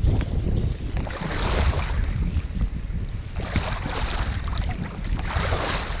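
Wind buffeting the microphone with a constant low rumble, while shallow lake water splashes and washes in a few separate swells, about a second, three and a half seconds and five seconds in.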